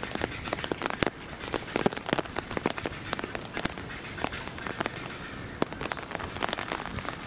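Rain falling, with many irregular sharp drop hits over a steady hiss.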